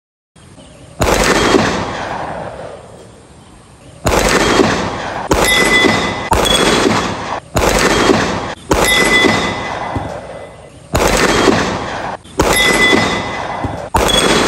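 A series of about nine gunshots at irregular gaps of one to two seconds, each a sharp crack followed by a long echoing tail.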